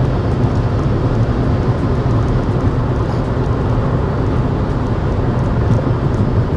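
Steady road noise inside a BMW car's cabin cruising on the motorway at about 130 km/h: a constant low hum and rushing of tyres and wind, with no change in pitch.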